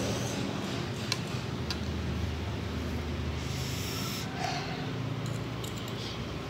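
A person reacting to very spicy noodles: puffing breath out through pursed lips, then a hiss of air sucked in through clenched teeth about four seconds in. A couple of light fork clicks come early, over a steady low hum.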